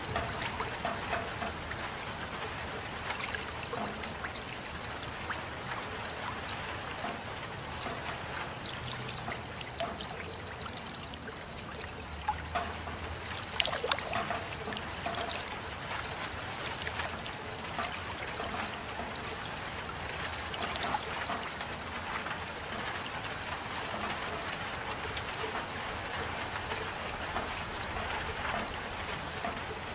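Steady rain, with many separate drops ticking and water trickling; a few louder drop hits come about halfway through.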